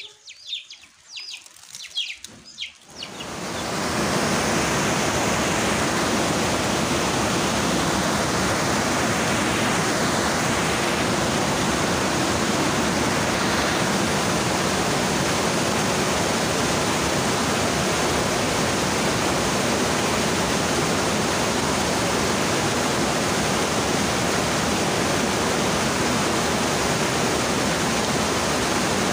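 A few chicken clucks at the start, then a fast-flowing stream fades up about three seconds in and rushes steadily over boulders.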